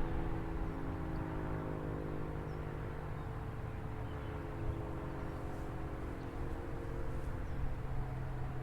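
ACA P-50 outdoor warning siren sounding the Attack wail, its tone sliding slowly downward, with a steady low hum underneath.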